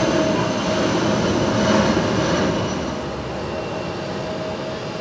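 Jet airliner's turbofan engines running with a steady whine, easing a little about halfway through.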